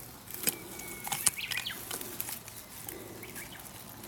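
Sharp clicks and scraping from a tool prodding at tree bark to coax a stag beetle out of its hiding place. The two loudest clicks come about half a second and a second and a quarter in.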